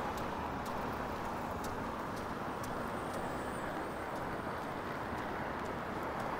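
Steady city street traffic noise, an even rush of passing cars, with faint scattered ticks over it.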